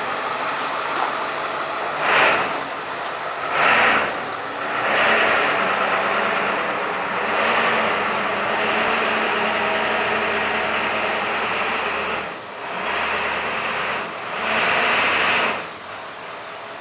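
Pickup truck engine running as the truck drives up and pulls in. The engine note swells several times, longest in the middle, and drops off about a second before the end.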